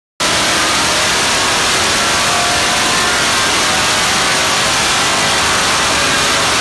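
383 cubic-inch small-block Chevy stroker engine running hard and loud on an engine dyno with a 100-horsepower ZEX nitrous shot. The sound cuts in abruptly and holds a steady level.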